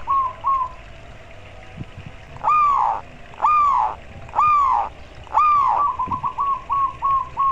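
Zebra dove (perkutut) cooing: a couple of short coos, then four long arched coos about a second apart, then a quick run of short staccato coos near the end.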